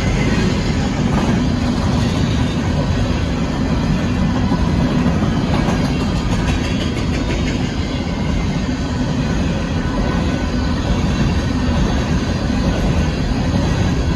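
Empty coal cars of a Union Pacific freight train rolling past close by: a steady rumble of steel wheels on the rails that keeps an even loudness throughout.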